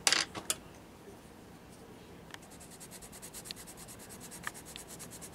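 A few sharp clicks in the first half second. Then, from about two seconds in, a colorless blender pencil scratches softly on paper in quick, even back-and-forth strokes, blending the colored-pencil layers.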